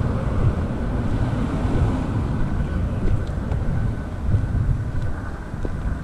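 Wind buffeting a body-worn action camera's microphone: a steady, gusting low rumble.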